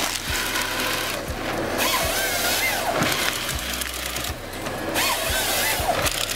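Forestry harvester head feeding a felled conifer trunk through its rollers and delimbing knives, its chain saw bucking it into logs, over the machine's running engine and hydraulics. The sawing comes in loud bouts, two of them.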